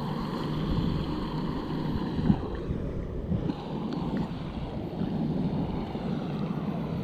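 Small electric RC boat motor whining faintly over the first few seconds as the boat runs away across the shallow water, then fading. Wind rumbles on the microphone throughout, with a brief bump about two seconds in.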